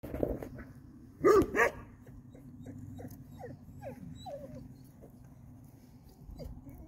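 Farm animal calls: one loud, drawn-out call about a second in, then a string of short, quick chirping calls.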